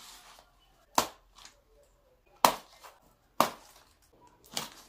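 White plastic packing straps snapping loose from a cardboard box: four sharp snaps, roughly a second apart.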